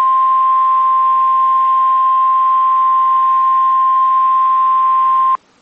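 NOAA Weather Radio's 1050 Hz warning alarm tone: one loud, steady, high beep that cuts off sharply about five seconds in. It is the alert signal that announces a tornado warning broadcast.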